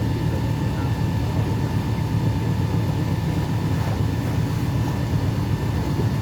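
Cruise boat's engine running steadily on the river, a deep continuous hum with a faint steady whine above it.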